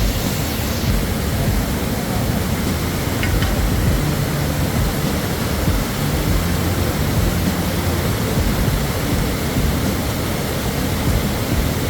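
Steady rushing of river water, an even noise without breaks.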